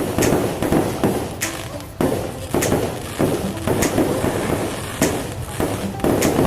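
Aerial fireworks going off in a steady run: sharp bangs about once a second, each with a rumbling tail, over continuous crackle and booming.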